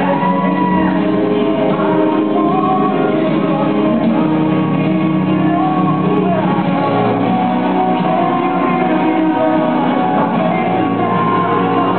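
A recorded song with a sung vocal over steady instrumental backing, played back in a large hall as dance music.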